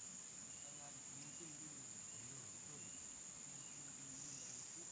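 Insects, crickets or cicadas, keeping up a steady, continuous high-pitched chorus, with faint distant voices underneath.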